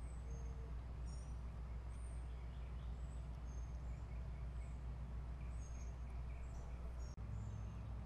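Outdoor ambience: small birds give short, high chirps again and again over a steady low rumble.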